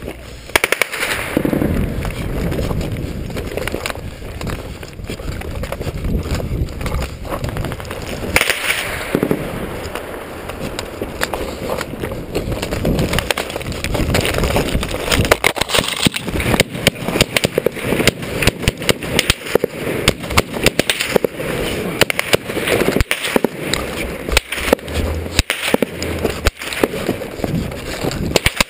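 Close, helmet-mounted sound of a soldier scrambling down a rocky slope: boots scraping and slipping on loose stone and gravel, with kit rattling. Sharp cracks and knocks come through, thickening into a fast, irregular run from about halfway on.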